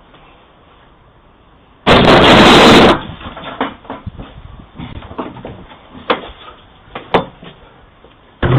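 A sudden, very loud crash about two seconds in that lasts about a second, followed by a string of scattered knocks and bangs.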